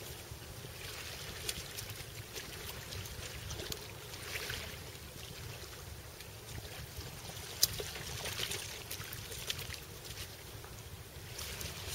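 Small waves washing onto a pebble beach, each wash a hiss that swells and fades a few seconds apart, over a low wind rumble on the microphone. Scattered small clicks, with one sharp click a little past halfway.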